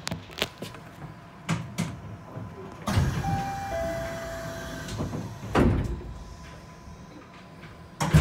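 Knocks and clunks inside a suspended monorail car stopped at a station, with a rushing sliding-door sound about three seconds in that carries two short steady tones. A heavy thump follows near the middle and another near the end.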